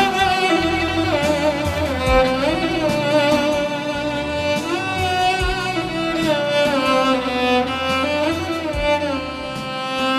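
Background music: a slow, sliding violin melody with vibrato over bowed strings, with a low bass note every three to four seconds.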